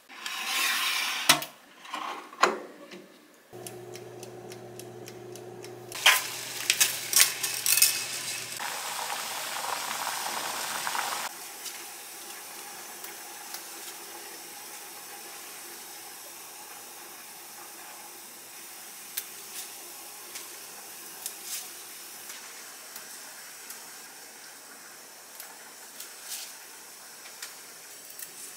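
Kitchen handling sounds: a few sharp knocks and clicks, a low steady hum for about five seconds with a run of loud clicks, then a hiss for about three seconds. After that comes a long quieter stretch with light ticks and rustles as arugula leaves are picked from a potted planter by hand.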